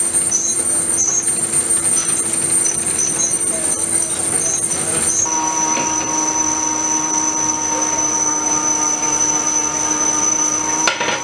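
Pillar drill boring a hole in a steel flange, the cutting giving a steady high metallic whine with small regular ticks; about halfway through it gives way to a lathe turning a steel flange ring, with a different set of steady high tones over the machine's running. A sharp knock near the end.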